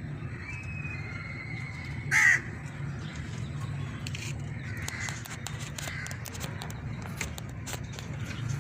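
A single loud, short bird call falling in pitch about two seconds in, followed by fainter bird calls, over a steady low hum and scattered faint clicks.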